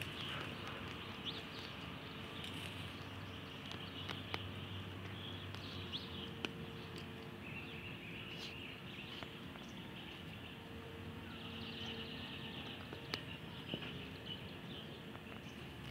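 Outdoor ambience: faint bird chirps over a steady low hum, with a few short, sharp clicks scattered through it.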